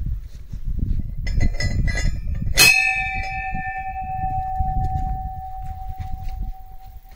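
A temple bell struck once about two and a half seconds in, ringing on with one steady tone that fades slowly over several seconds; a few lighter ringing notes come just before the main strike. A low rumble runs underneath.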